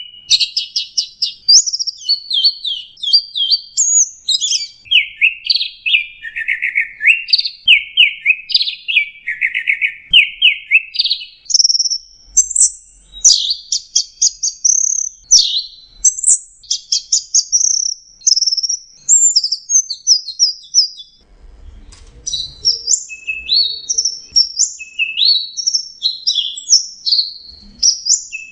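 Orange-headed thrush singing: a long, unbroken run of quick, varied whistled and chattering phrases that leap up and down in pitch, with a brief pause about three quarters of the way through.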